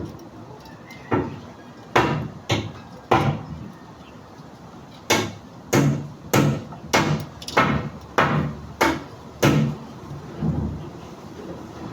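Hammer blows on building work: four uneven strikes, a gap of about two seconds, then a steady run of eight strikes a little under two a second, with a weaker knock near the end.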